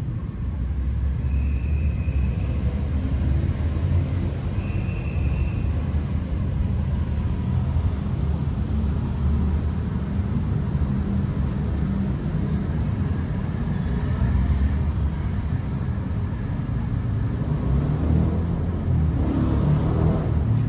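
Steady low outdoor rumble. Two faint, brief high-pitched tones come in the first few seconds.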